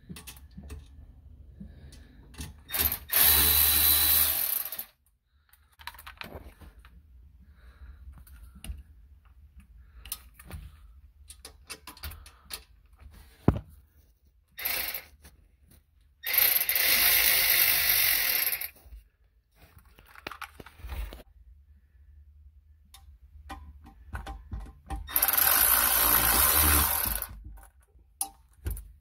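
A cordless power tool, a power ratchet or driver on a socket and extension, spinning bolts on a Sea-Doo's exhaust J-pipe. It runs three times for about two seconds each, with light clicks and knocks of the socket and tool between the runs.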